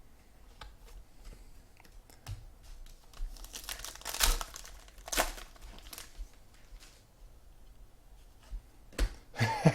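Trading card pack wrapper being crinkled and torn open, with cards handled: short rustles and clicks scattered through, the loudest around the middle.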